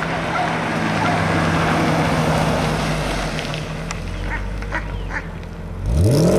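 BMW 540i's V8 with a six-speed manual running at low revs as the car rolls away, then revved hard near the end, its pitch sweeping quickly upward as a burnout begins.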